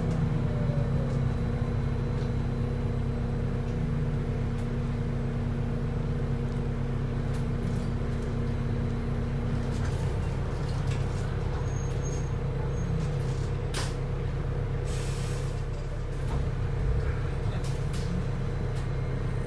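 Wright New Routemaster hybrid bus heard from inside the cabin while running on its diesel engine alone: a steady low engine drone with a steady whine over it, one tone in it stopping about ten seconds in. A short hiss of compressed air about fifteen seconds in, with a few clicks just before.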